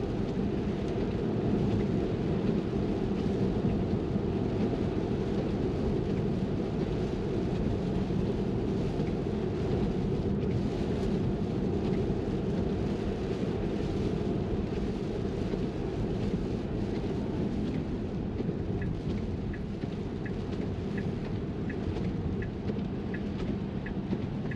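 Steady in-cabin road noise of a Tesla electric car driving on a wet road in rain: a low rumble of tyres on wet pavement with rain hissing on the glass. Near the end a soft turn-signal indicator starts ticking, about three ticks every two seconds.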